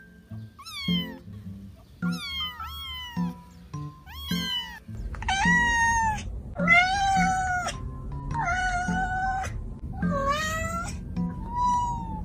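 Kittens mewing in short, high cries that fall in pitch. From about five seconds in, these give way to a cat's longer, lower meows, four or five of them about a second apart. Background music with a steady beat plays underneath.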